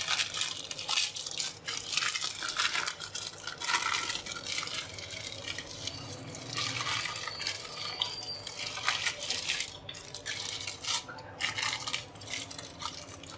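Butter paper crinkling and rustling as it is peeled off a baked cake, in an irregular run of crackles.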